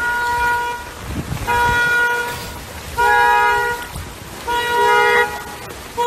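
Car horn sounding in five short, evenly spaced blasts, about one every second and a half, each lasting roughly two-thirds of a second.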